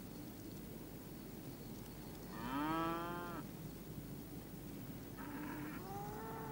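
Cattle mooing: one long, drawn-out call about two and a half seconds in, then a second call rising in pitch near the end.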